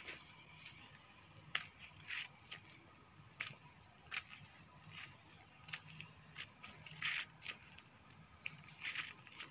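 Footsteps scuffing on a paved road at a walking pace, a short light scrape about every half second to second, over a faint steady high hiss.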